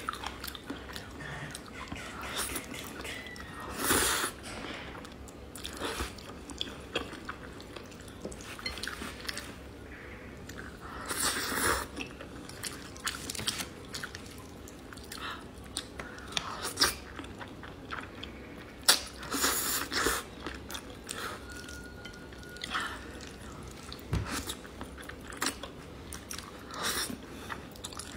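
Close-miked eating of cheese-topped spicy instant fire noodles: soft chewing, with louder wet slurps every few seconds as strands are sucked up.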